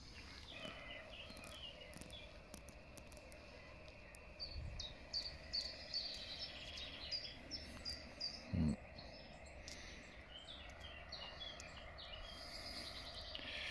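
Birds chirping and singing over faint outdoor background noise, with two brief low thumps, one about four and a half seconds in and a louder one past eight seconds.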